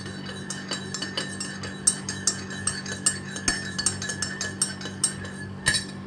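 A metal spoon stirring lemonade in a ceramic mug, clinking rapidly and irregularly against the sides as lemon and sugar are mixed in. The clinking stops shortly before the end.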